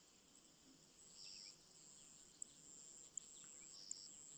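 Faint evening insects: a steady high-pitched trill, with two short chirps, about a second in and near the end.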